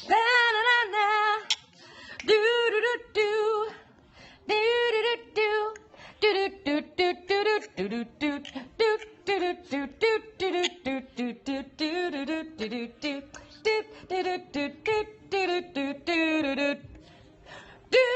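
A parrot vocalizing in a rapid run of short, song-like pitched notes, many of them wavering.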